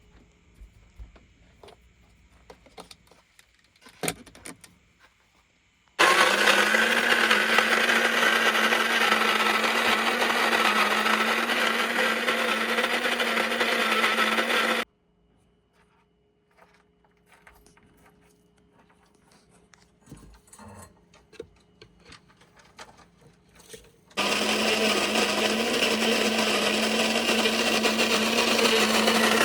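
A small electric motor appliance, blender-like, running at a steady speed in two long bursts, the first about nine seconds and the second starting near the end, each switching on and off abruptly; faint clicks and knocks between the bursts.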